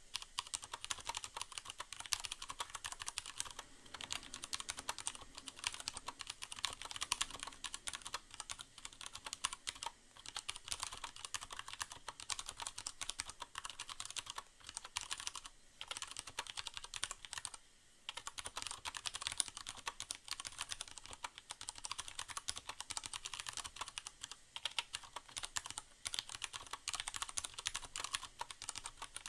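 Typing on a Leopold FC750R mechanical keyboard with Cherry MX Brown switches: a fast, continuous run of key clicks, softened by the board's internal sound-dampening pad, with brief pauses about halfway through. A soft steady hiss of rain sounds lies underneath.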